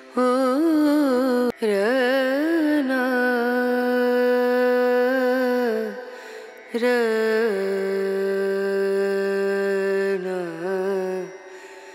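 Background music: a slow single melody of long held notes with wavering ornamental turns, breaking off briefly about six seconds in and again near the end.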